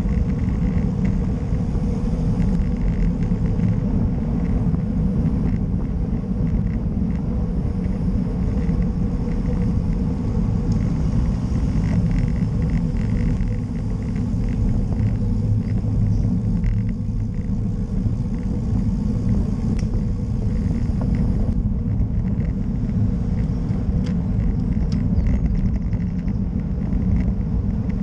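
Steady low wind rumble on the microphone of a camera riding on a moving road bike, mixed with the hiss of its tyres on the asphalt.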